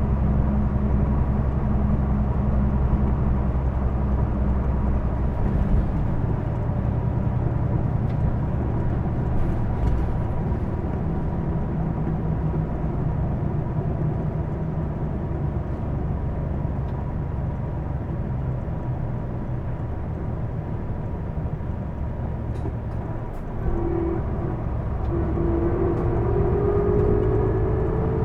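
Hino Blue Ribbon II city bus heard from inside while driving, its diesel engine running under the cabin noise with a steady high tone throughout. This bus is noted for an abnormal running noise. About 23 seconds in, a whine starts and rises steadily in pitch as the bus picks up speed.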